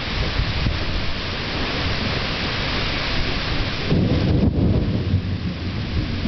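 Thunderstorm: steady heavy rain with rumbling thunder, and the rumble grows louder about four seconds in.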